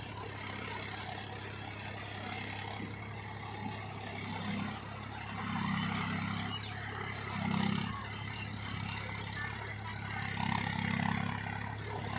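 Mahindra Yuvo tractor's diesel engine running steadily while pulling a plough, swelling louder several times as the load comes on.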